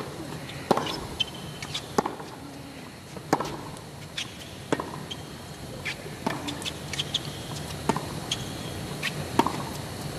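Tennis rally on a hard court: racquets striking the ball back and forth in sharp hits about every second and a half, with ball bounces and short shoe squeaks in between.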